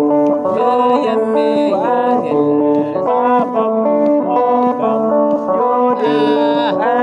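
Music with plucked string instruments, a melody of held and sliding notes.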